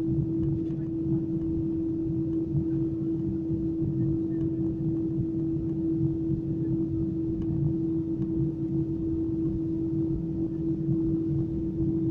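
Airbus A320's twin jet engines at low power heard inside the cabin while taxiing: a steady low rumble with a constant hum-like tone over it.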